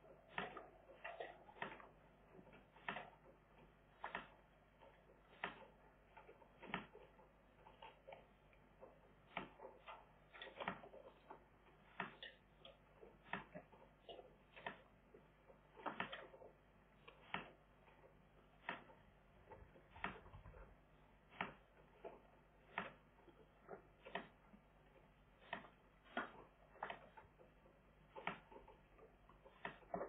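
Faint, irregular clicking and ticking, about one or two sharp clicks a second, over a near-silent background.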